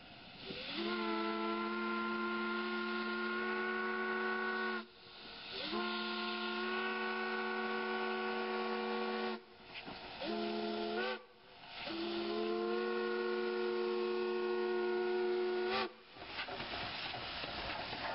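Steam locomotive whistle blowing four blasts, long, long, short, long, the pattern of the grade-crossing signal. Each blast swoops up in pitch as it opens and sags as it closes, and a hiss of steam carries on after the last one.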